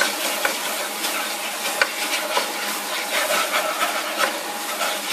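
Hot oil sizzling steadily in a nonstick wok as a wooden spatula stirs and scrapes small chopped pieces through it, with frequent light knocks of the spatula against the pan.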